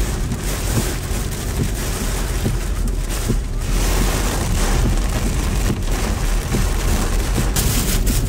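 Heavy hurricane rain and wind pelting a moving car, heard from inside the cabin as a steady rush with a low rumble beneath. These are the rough conditions of a hurricane's eyewall.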